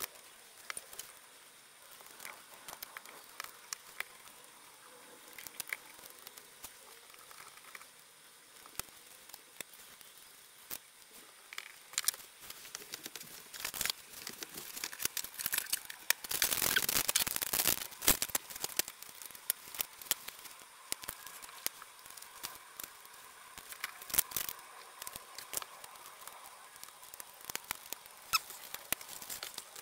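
Small clicks and handling noises of hand assembly on a carbon-fibre drone frame: screws, a hex driver and plastic motor guards being worked as the motors are fitted. A louder, noisy stretch of about two seconds comes around the middle.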